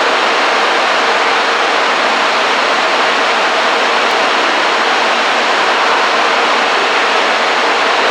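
Steady, even rushing din of a railway station platform while an electric express train approaches slowly in the distance; the level stays flat, with no clear train sound standing out of it.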